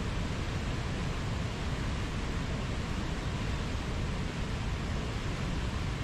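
Steady rush of a fast, turbulent mountain river over rapids, an even unbroken noise of white water.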